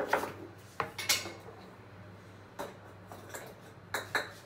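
A wire whisk knocking and clicking against a plastic mixing bowl of batter in a few scattered strokes, the loudest about a second in.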